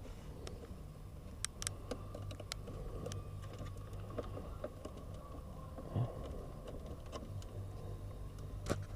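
Faint scattered plastic clicks and handling noise as electrical connectors are worked loose from behind a truck's dashboard panel, over a low steady hum.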